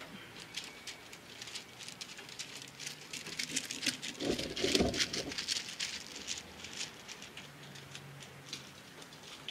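Light, rapid clicking and scraping of a steel brake line flare nut being worked by hand into the master cylinder port while the threads are coaxed to catch, with a louder scuff about four seconds in.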